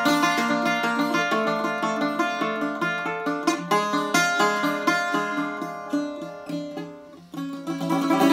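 Greek bouzouki playing a solo melody: a run of quick picked notes that dies away to a brief pause about seven seconds in, then comes back louder just before the end.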